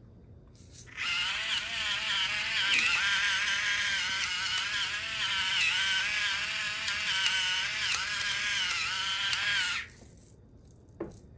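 Electric salt and pepper grinder running for about nine seconds, its motor whining with a slightly wavering pitch as it grinds over the bowl, then cutting off.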